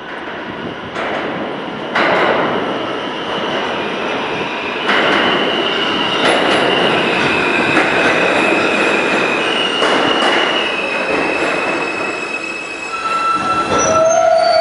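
R160A subway train pulling into a station and braking to a stop. Its wheels rumble and click over rail joints, with a high wheel squeal through the middle, and a lower-pitched squeal near the end as the train halts.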